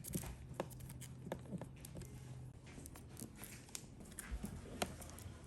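Irregular small clicks and taps of hands handling laptop parts, with a faint low hum under the first half.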